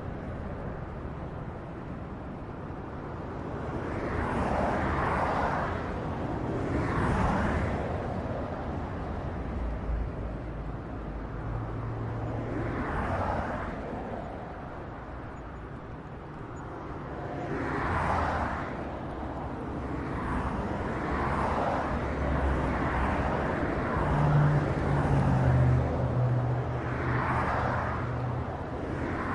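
Highway traffic: vehicles pass one after another, their tyre and engine noise swelling and fading every few seconds over a steady background roar. A low engine hum comes in about twelve seconds in and again for several seconds near the end.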